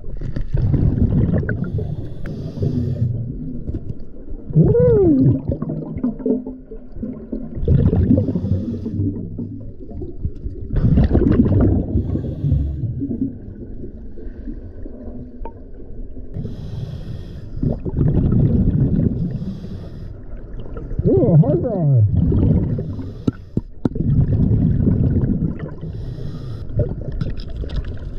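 Scuba diver breathing underwater through a regulator: a rumbling burst of exhaled bubbles every few seconds, with a thin regulator hiss on each inhale between them. About five seconds in there is a muffled whoop through the mouthpiece, and a falling squeal comes around two-thirds of the way through.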